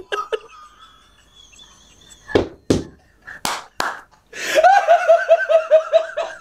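Men laughing hard: a faint high-pitched laugh at first, then about four sharp hand claps, then a loud run of rhythmic ha-ha-ha laughter.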